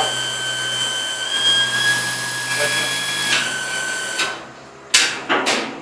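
Electric pump motor of a portable fuel dispenser running with a steady high whine, its pitch stepping up slightly about a second in, then switching off about four seconds in. Three short bursts of noise follow near the end.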